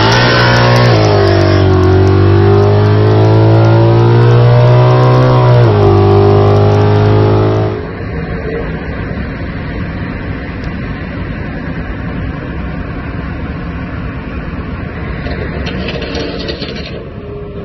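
Car engine at full throttle, loud, its pitch climbing and dropping sharply at upshifts about a second in and again near six seconds. After about eight seconds it gives way to a steadier, quieter hum of engine and road noise, heard from inside a car cruising on the highway.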